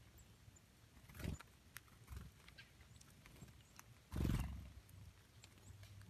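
Small bird's wings fluttering close to the microphone in two short whirring bursts, one about a second in and a louder one about four seconds in, with a few faint ticks of birds among the dry leaves.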